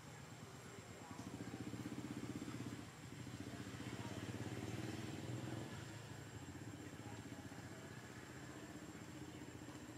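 A motor vehicle engine running, louder from about a second in until about five and a half seconds, then steadier and quieter.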